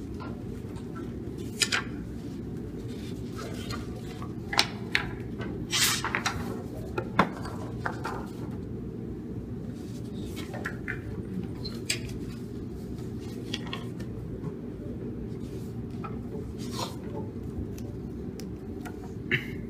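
Papers being leafed through and handled at a table: scattered rustles and short sharp clicks over a steady low hum.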